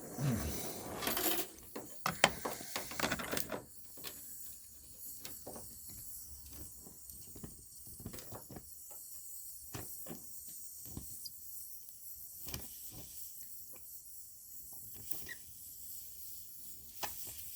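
Stick-welding arc on thin sheet-metal body panel, worked with a small-diameter rod to fill a burned-through hole. It hisses with an irregular crackle of pops, louder for the first few seconds.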